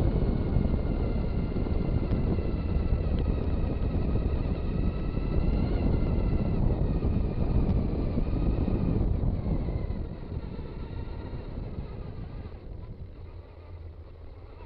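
Traxxas Stampede 2WD RC car driving: its electric motor and gearing whine, rising and falling in pitch with the throttle, over a heavy rumble of tyres and wind on the onboard microphone. About ten seconds in it gets quieter, and near the end the whine dies away as the car slows.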